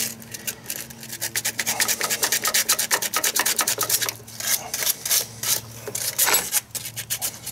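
Small piece of sandpaper rubbed quickly back and forth over the corroded copper terminal stud of a new starter motor, scraping it down to shiny metal for a good cable connection. Fast scratchy strokes, several a second, with a couple of short pauses.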